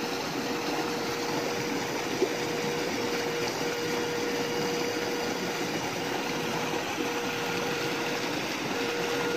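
Steady rushing of river water, with a steady mid-pitched hum running through it that cuts out briefly a few times.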